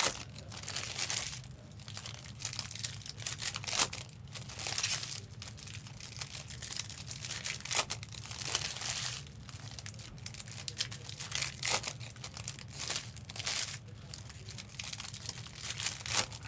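Foil trading-card pack wrappers crinkling and tearing as packs are opened, in irregular rustling bursts with a few sharp clicks, over a steady low hum.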